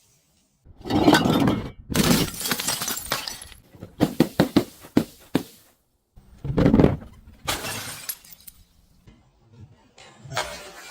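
Glass shattering and crunching in several separate breaks, with a run of quick sharp cracks about four seconds in.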